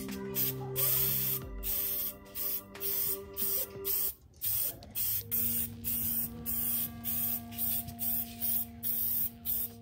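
Aerosol spray paint can hissing in short repeated bursts, about two a second, as red paint is sprayed onto plastic hoverboard shells.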